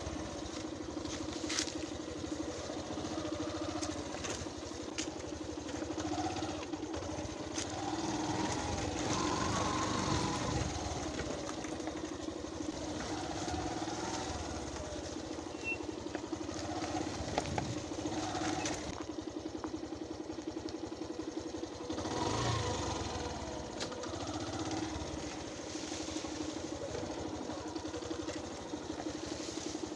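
Motorcycle engine running steadily, its note swelling up and back down a couple of times, about a third of the way in and again a little past the middle.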